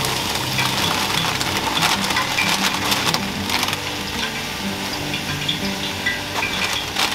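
Sizzling in a hot pot as handfuls of collard greens are dropped onto onions and salt pork cooking in it, with the plastic bag of greens crinkling.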